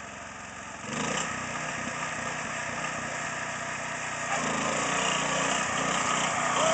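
Riding lawn tractor's small engine running as it climbs a dirt trail, jumping louder about a second in and growing steadily louder as it approaches.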